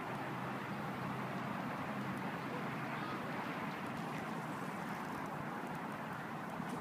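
Steady rush of road traffic with no distinct events.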